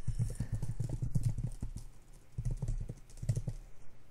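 Typing on a computer keyboard: a quick run of key presses, with short pauses about two and three seconds in.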